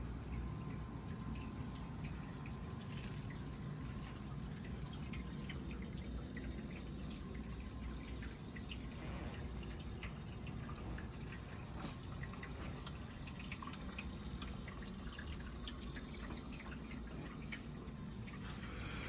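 Water dripping and trickling, many small drips scattered over a steady low hum.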